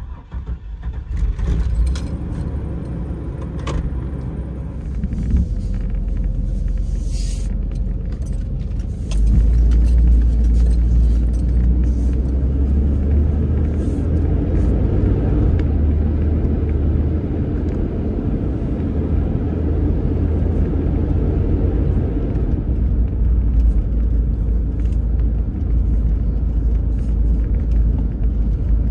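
Chevrolet van's engine starting with the key, then running as the van drives off, heard from inside the cab. A steady low rumble that gets louder about nine seconds in as the van gets under way.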